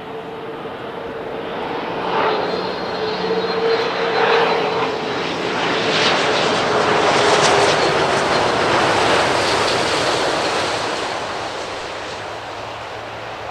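Boeing 777-9's twin GE9X turbofan engines during a low landing approach, a steady whining roar with a clear fan tone that sags slightly in pitch. The sound builds to its loudest in the middle as the jet passes close, then eases off as it touches down.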